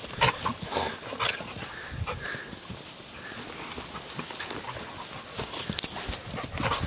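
Two dogs play-fighting: brief snarls and yelps mixed with the irregular scuffle and thud of paws on the ground, busiest in the first second or so and again near the end.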